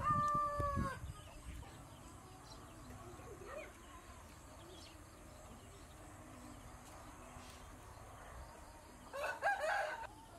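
Rooster crowing: the held end of a long crow that drops in pitch and stops about a second in. Another short, loud call comes near the end.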